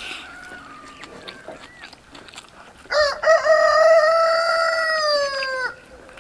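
Rooster crowing once, about three seconds in: a couple of short wavering notes, then one long held call that sags slightly and cuts off. Before it there are only a few faint clicks.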